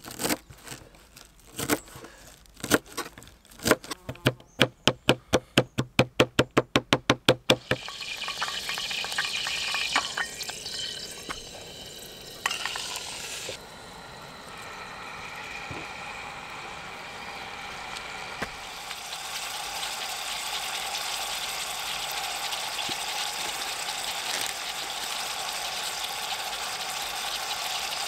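Knife chopping green onions on a plastic cutting board, quick knocks that speed up to about five a second and stop about eight seconds in. Then grouse meat frying in oil in a pot on a camp stove, a steady sizzle.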